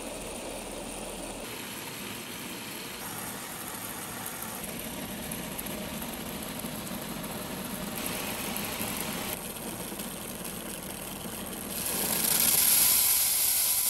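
Water spraying from a hand-pump pressure sprayer's nozzle onto a hanging bicycle chain in a plastic tote: a steady hiss that grows louder and brighter near the end.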